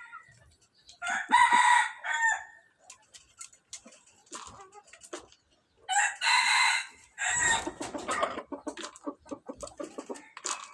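Rooster crowing twice, each crow about a second long, the second about five seconds after the first. A run of quick clucks follows near the end.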